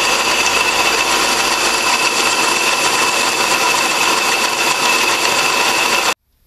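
1A616 screw-cutting lathe running, machining a part: a steady mechanical noise with a constant high whine, cutting off abruptly near the end.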